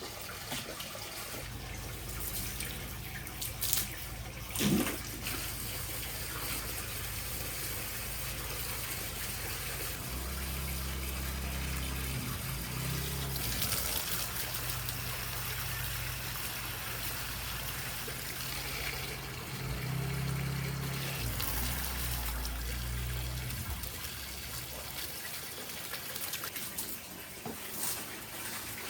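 Water running steadily from a tap, with a couple of short knocks about four to five seconds in.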